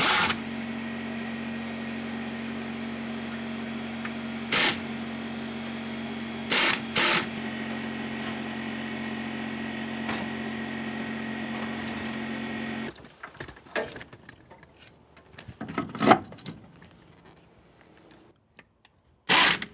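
A steady mechanical hum from a small running motor, with a few sharp metallic clinks of wrenches on the brake master cylinder. The hum cuts off abruptly about two-thirds of the way through, leaving quieter scattered clicks and a louder knock near the end.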